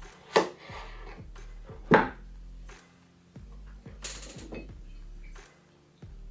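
Kitchen knife cutting a cucumber: two sharp knocks of the blade on the board, about half a second and two seconds in, and a short scrape about four seconds in. Faint background music underneath.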